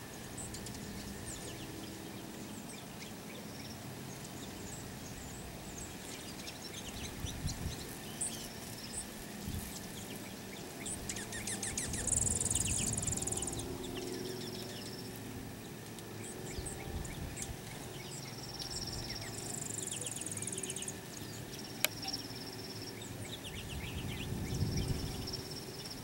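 Small ground-feeding songbirds, juncos and finches, calling with scattered short chips and twitters, with two high buzzy trills partway through. A single sharp click about two-thirds of the way in.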